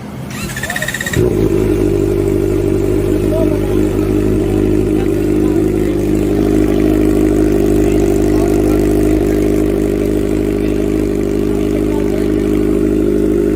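Kawasaki Ninja ZX-4RR's inline-four, breathing through an Austin Racing aftermarket exhaust, cranks on the starter for about a second, then catches and settles into a steady idle.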